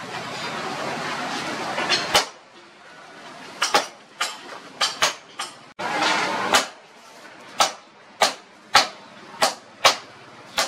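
Hand hammer blows on red-hot leaf-spring steel on an anvil, forging a knife blade. The first two seconds hold a rushing noise; the strikes start around two seconds in, scattered at first, then fall into a fairly steady beat of roughly one every half second or so, with a second short rush of noise around six seconds.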